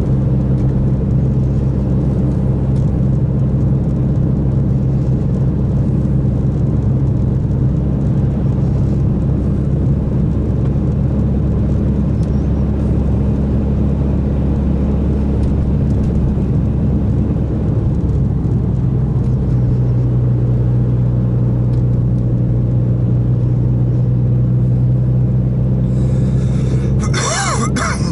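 Mitsubishi Lancer Evolution X MR's turbocharged four-cylinder engine and road noise heard from inside the cabin at a steady cruise: a loud, even drone that drops slightly in pitch about two-thirds of the way through. A short burst of higher, wavering noise comes near the end.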